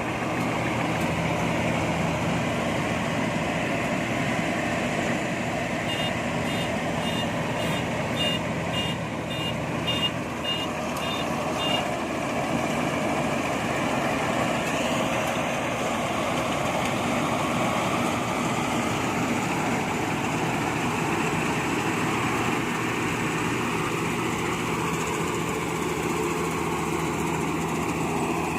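Combine harvester's diesel engine running steadily. From about six to twelve seconds in, a warning beeper sounds in short high beeps about twice a second.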